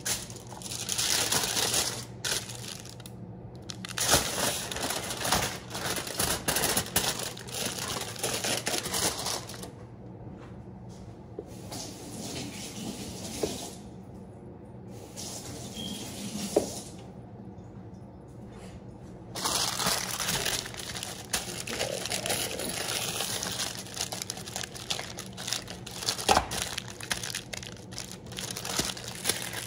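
Aluminium foil crinkling and rustling as it is folded and pressed around a pan of ribs, in spells of handling with a quieter stretch in the middle.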